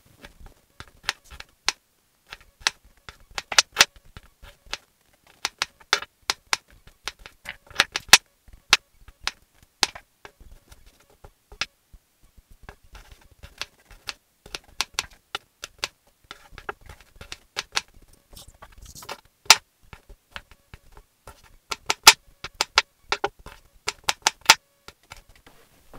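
Kitchen knife chopping garlic and onions on a wooden cutting board: quick runs of sharp knocks with short pauses between them, and a quieter stretch near the middle.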